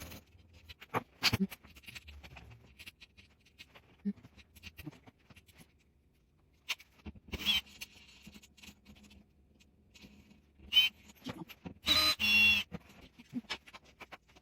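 Scattered clicks and knocks of tools and mounting hardware being handled, with two short whirring bursts of a cordless drill, about seven seconds in and a longer one about twelve seconds in.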